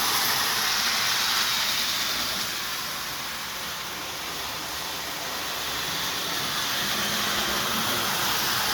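Lionel 1689E Commodore Vanderbilt prewar tinplate train running steadily along its track, a continuous rushing rattle of the locomotive and four passenger cars. It fades a little about three seconds in, then grows louder again.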